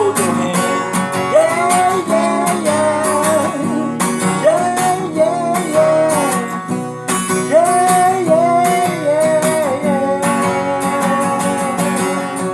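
Acoustic guitar strumming the closing bars of a song, with a wordless melody line gliding above the chords.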